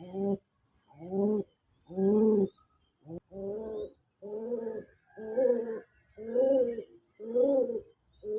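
Pigeon courtship cooing: a steady run of about eight low coos, roughly one a second, each about half a second long.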